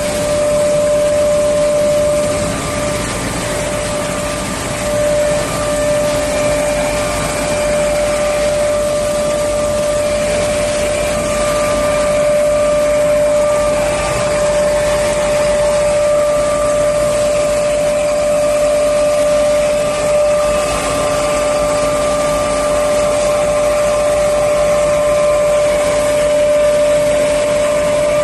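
Rice mill plant machinery running: a steady, loud mechanical drone of motors and fans with a constant whine held throughout.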